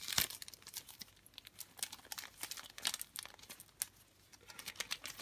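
Clear plastic bag holding a sticker sheet crinkling and crackling as it is handled, in scattered irregular bursts that thin out near the end.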